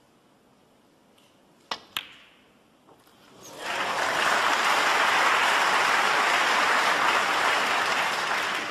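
Two sharp clicks of snooker balls about a quarter of a second apart: the cue tip striking the cue ball, then the cue ball hitting the green. A faint knock follows about a second later. Then audience applause swells up about three and a half seconds in and holds steady, greeting the pot.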